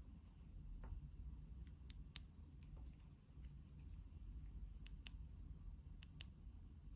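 Faint, scattered sharp clicks and light taps, about a dozen in all at uneven intervals, typical of small objects being handled, over a low steady room hum.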